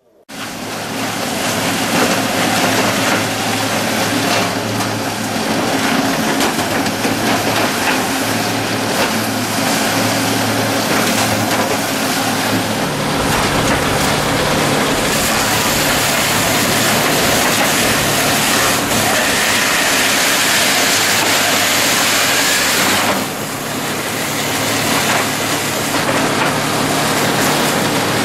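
Electric-driven dowel mill running with a pole feeding through its feed rollers: a loud, steady machine din with a low hum and the hiss of wood being shaved. A brighter high hiss comes in after about half the time and stops about four-fifths of the way through, where the level briefly drops.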